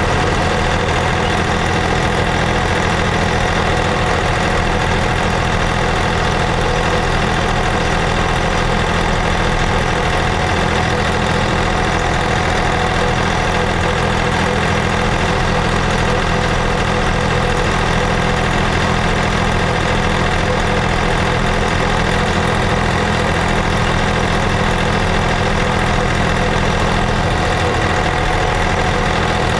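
John Deere tractor's diesel engine running steadily under way, heard close up from the tractor seat, its pitch and loudness holding even.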